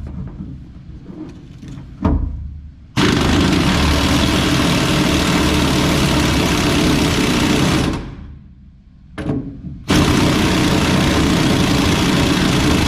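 Impact wrench hammering on a cab-mount bolt of a 1972 Chevrolet C10. A short burst comes about two seconds in, then a run of about five seconds, a pause, and another run of about three seconds.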